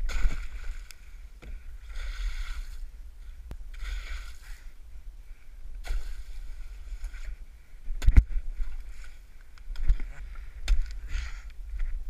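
Kayak and paddle breaking through a thin sheet of sea ice. The ice crackles and scrapes in surges about every two seconds with the paddle strokes. A heavy knock comes about eight seconds in and a lighter one near ten, as ice slabs strike the boat hulls.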